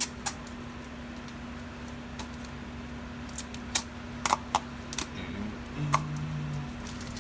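Scattered sharp clicks and snaps of plastic packaging and tape being handled and pulled open, most of them in the second half, over a steady low hum.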